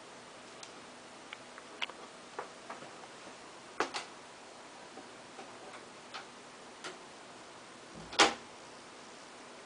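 A steady faint hiss with irregular light clicks and taps, about a dozen of them. The loudest comes near the end.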